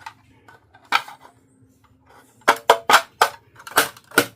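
Small hard miniature toy pieces clicking and clinking as they are handled and set down: one click about a second in, then a quick run of about six sharp clicks in the second half, a few with a short ring.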